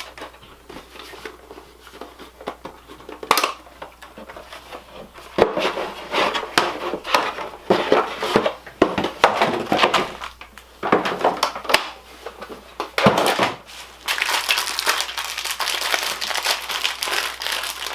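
Packaging being handled: crinkling and rustling with scattered light knocks and clatter, turning into continuous crinkling in the last few seconds.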